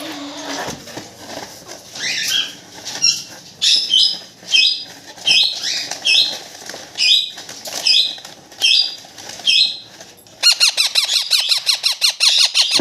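Baby ring-necked parakeet chick calling: a string of short, high squawks about two a second, then from about ten seconds in a fast, buzzing chatter of rapid pulses.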